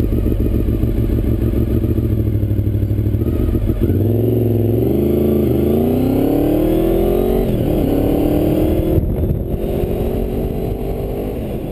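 Honda VFR motorcycle's V4 engine under way, recorded through a GoPro's open non-waterproof case backing. About four seconds in it accelerates, its pitch rising with two short dips at gear changes, then it holds a steady note and fades near the end.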